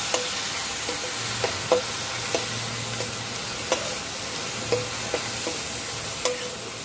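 Ground onion, garlic and ginger paste sizzling in hot oil in a non-stick kadai while a steel ladle stirs it, knocking against the pan about ten times at an uneven pace, each knock ringing briefly. This is the masala being fried (bhuna).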